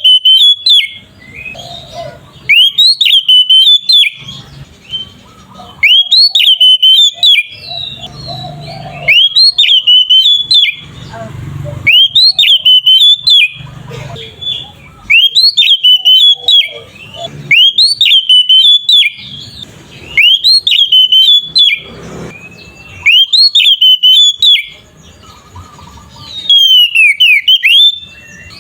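Oriental magpie-robin (kacer) singing loud, clear whistled phrases, each a quick cluster of sharply rising and falling notes, repeated about every two seconds.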